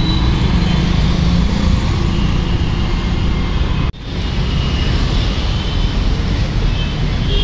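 City street traffic: a steady low rumble of passing motor vehicles, broken briefly about four seconds in.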